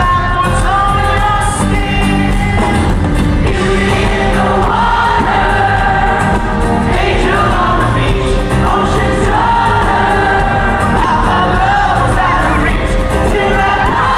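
Live pop-rock band playing, with a lead singer and a group of young women's voices singing along.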